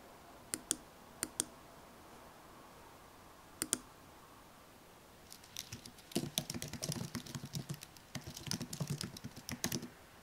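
Three quick pairs of mouse clicks, then computer keyboard typing, a steady run of keystrokes for about four seconds, as a file name is entered.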